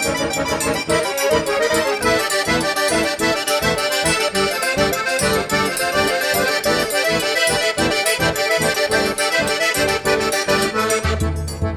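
Lively dance music with a quick, even pulse of short notes; a deep bass comes in near the end.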